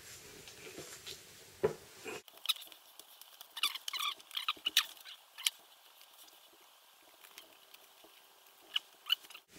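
Scattered light clicks and rustles of paper and packaging being handled, with the low room hum dropping out about two seconds in.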